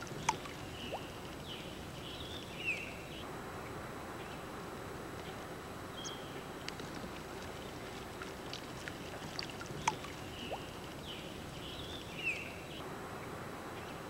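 Lakeside ambience: a steady hiss of water with scattered small clicks and short bird-like chirps. The same run of sounds repeats about every ten seconds, as from a looped track.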